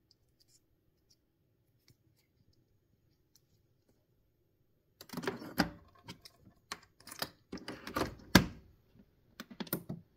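Plastic and metal clicks and clunks from a De'Longhi Nespresso capsule machine as its capsule lid and lever are lifted and pressed shut. Faint ticks come first, then a few seconds of clatter starting about halfway in, with the loudest knock near the end.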